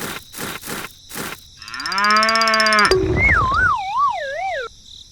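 A few sharp knocks, then a long pitched call that rises, holds and drops away, then a wavering whistle-like tone sliding up and down about twice a second that cuts off suddenly.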